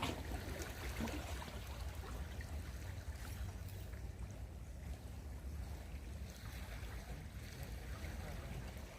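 Water lapping and trickling with a low steady rumble underneath, and a couple of faint clicks in the first second or so.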